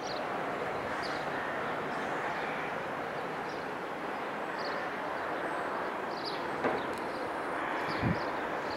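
Outdoor ambience: a steady rush of background noise, with faint short high bird chirps scattered through it. A brief click comes about two-thirds of the way in and a soft low thump near the end.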